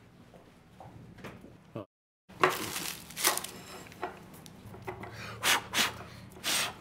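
A few short sounds of a door and steps, then several brief rips and rustles of paper sugar packets being torn open and handled at a table.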